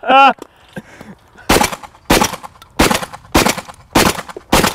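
Shotgun fired six times in quick succession, about one shot every 0.6 seconds, at clay targets.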